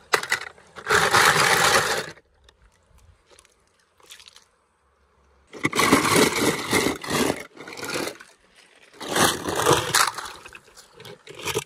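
Die-cast toy cars clattering against each other in a plastic tub, in three noisy bursts, with a toy splashing into shallow creek water near the end.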